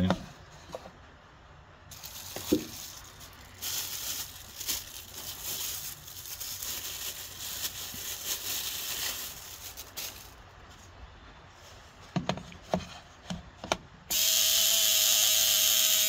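Clicks and knocks of a wooden Model T trembler coil being handled and seated in a coil tester. Near the end the coil starts buzzing loudly and steadily as the tester fires its vibrator points.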